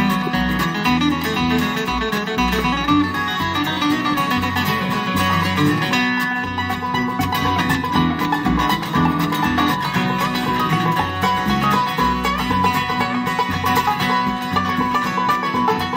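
Live bluegrass band playing: banjo, acoustic guitars and upright bass, with rolling banjo notes over a steady plucked bass.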